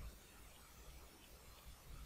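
Near silence: faint room tone with a low hum and hiss.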